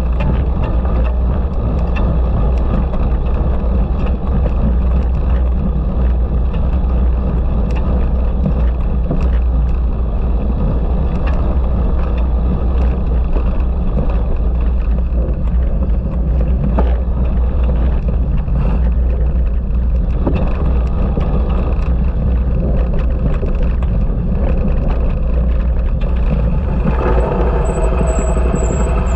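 Wind rushing over a camera microphone on a cyclocross rider at race speed: a loud, steady low rumble, with small knocks and rattles from the bicycle over rough ground. Near the end a brief pitched sound rises above it.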